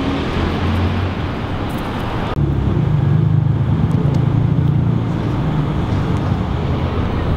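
City street traffic noise: a steady hum of passing cars and engines. About two seconds in the sound changes abruptly, losing its hiss, and a deeper engine rumble takes over.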